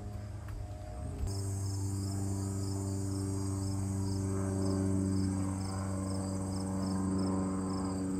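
Crickets chirping: a steady high trill with a regular chirp repeating a little under twice a second, over a steady low hum. All of it starts about a second in.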